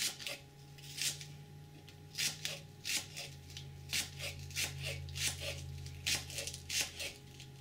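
Ceramic knife slicing green onion whites on a thin plastic cutting board: light, uneven cutting taps about two a second, over a steady low hum.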